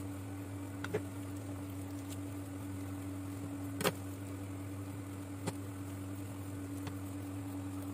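A steady low motor-like hum, such as a running kitchen appliance, with a few short clicks from raw chicken being handled on a wooden board as its skin is pulled off by hand.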